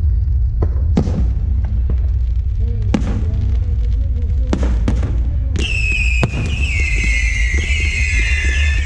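Aerial firework shells bursting in a string of sharp bangs, over loud music with a heavy bass. From just past halfway, a chorus of high wavering whistles sets in and slowly falls in pitch.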